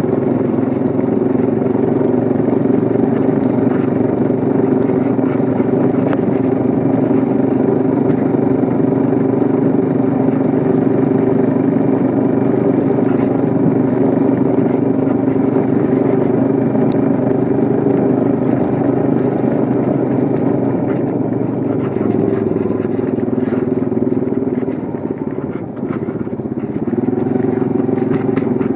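Engine running steadily with an even hum, easing off briefly about 25 seconds in before settling back.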